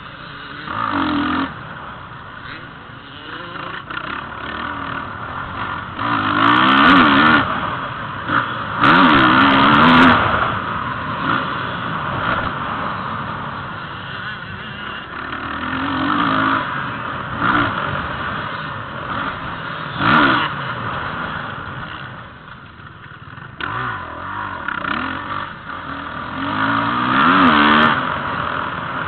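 Motocross dirt bike engine heard from on board while riding a dirt track, revving hard and easing off again and again as the rider works through the corners and straights, its pitch rising and falling. The hardest surges come about a quarter of the way in and again near the end.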